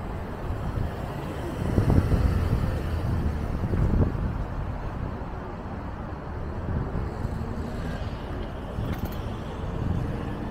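Road traffic: cars driving past close by, the loudest passes about two and four seconds in, over a steady rumble of traffic.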